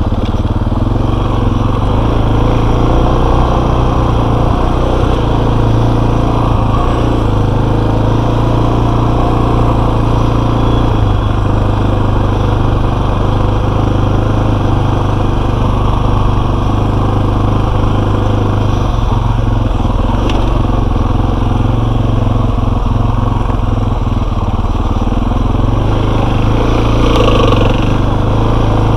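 Enduro motorcycle engine running at steady, low revs with only small changes in throttle, and a few knocks about two-thirds of the way through.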